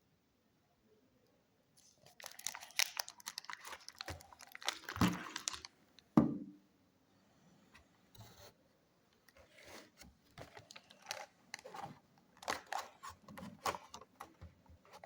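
Handling noises: a few seconds of dense crinkling and rustling, a single loud thump, then scattered light clicks and rustles.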